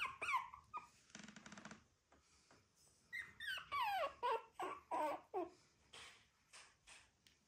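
Four-week-old puppies whining and yipping: a few high cries that fall in pitch at the start, then a quick run of them from about three to five and a half seconds in.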